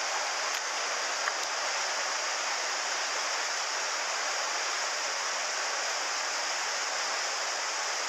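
Small waterfall in a mountain headwater stream pouring between boulders into a pool: a steady rush of falling water.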